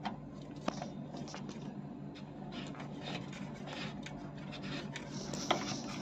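Plastic hose connector handled at a washing machine's water inlet valve: rubbing and scraping against the metal back panel, with a sharp click under a second in and another near the end, over a faint steady low hum.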